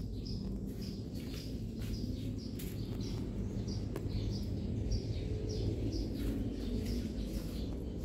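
Small 15-watt four-blade mini ceiling fan running with a steady low hum. Birds chirp repeatedly in short high calls, a few a second.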